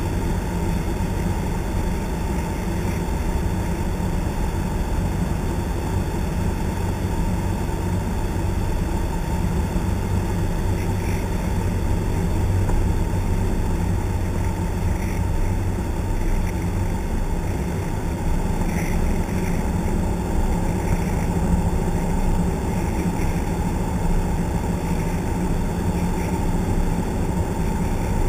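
Piston engine and propeller of a single-engine high-wing light aircraft droning steadily in flight, heard from inside the cabin.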